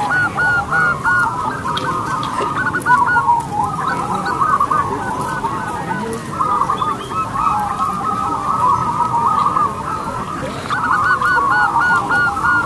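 A chorus of many caged zebra doves (perkutut) cooing at once, their rolling, repeated calls overlapping continuously, thinning briefly a few seconds in and filling out again near the end.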